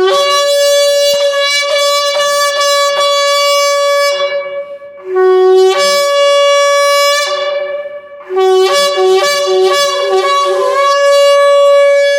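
Kudu-horn shofar blown in three long blasts, the pitch stepping back and forth between a higher and a lower note, with short breaks between the blasts. In the player's teaching it is a call that warns of a time of war and of the coming of the Messiah.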